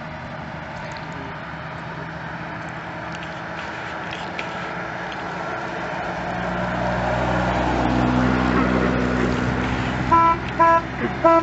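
Vintage cars driving round a bend, their engines growing louder as they approach. Near the end a car horn gives a quick run of short toots.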